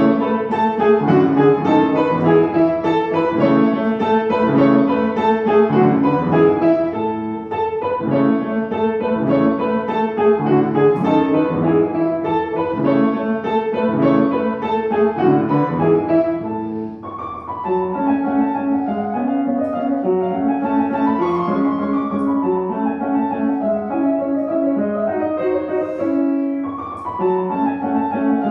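Piano playing a classical piece in a steady flow of notes, with short breaks between phrases.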